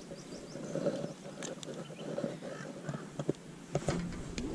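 Small clicks and taps from fishing pliers and hands working a soft-plastic lure's hook out of a small bass's mouth, a couple about a second and a half in and a cluster near the end.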